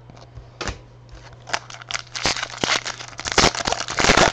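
A football trading-card pack wrapper being crinkled and torn open: a run of crackling rips that gets louder toward the end. A steady low electrical hum lies underneath.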